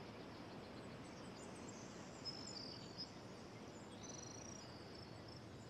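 Faint outdoor nature ambience: a steady soft hiss with birds chirping now and then in short high whistled notes, a few held a little longer near the middle.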